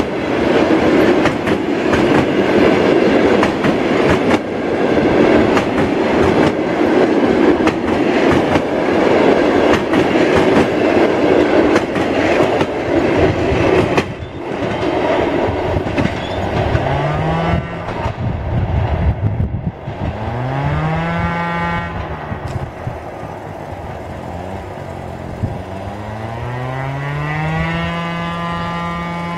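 Passenger train of a ChS2 electric locomotive running past, its wheels clattering loudly over the rail joints for about the first half. Then the clatter fades and a low humming tone with overtones rises and falls in pitch several times, holding steadier near the end.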